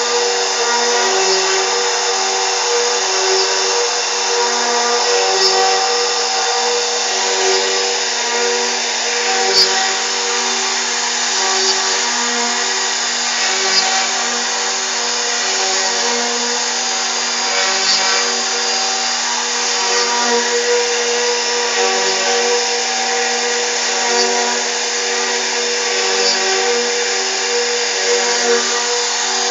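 CNC router running steadily as it carves, its spindle giving a constant machine whine with small irregular ticks from the cutting.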